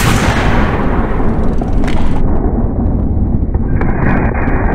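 A loud shot's blast right at the start, its roar cut off abruptly about two seconds in, over a steady low rumble.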